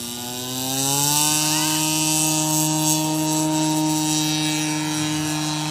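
Radio-controlled model airplane's engine and propeller throttling up. The pitch rises over the first second, then holds at a steady buzz as the plane takes off.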